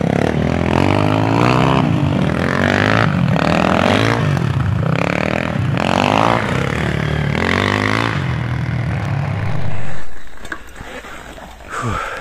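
Several enduro dirt bikes riding past one after another on a muddy forest trail, each engine revving up and down as it goes by. The engines drop away suddenly about ten seconds in, leaving a single short, falling rev near the end.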